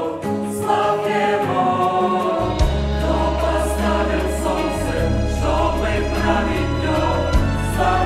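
Mixed choir of young men and women singing a hymn in Russian, many voices in harmony. A low held bass note comes in under the voices about two and a half seconds in.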